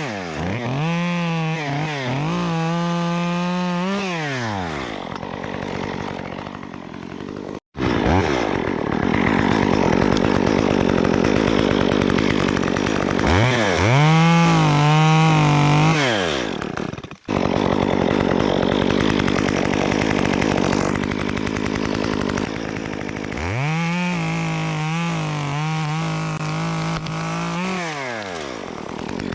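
Stihl MS 194T top-handle two-stroke chainsaw with a 1/4-inch ripping chain, revving up to full throttle and back down several times, with stretches of steady high-revving running under load in between, typical of cutting wood. The sound breaks off abruptly twice.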